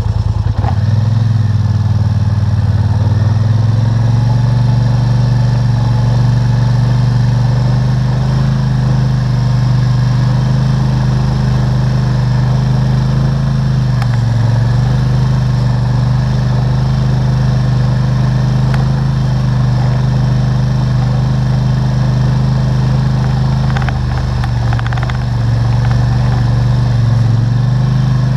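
ATV engine running steadily as it is ridden, heard close up from a camera clamped to the four-wheeler, with brief easings of the throttle about halfway through and again near the end.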